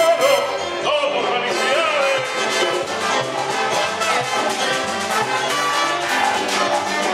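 Live Cuban son band playing an instrumental passage, with the horns to the fore over a steady percussion beat.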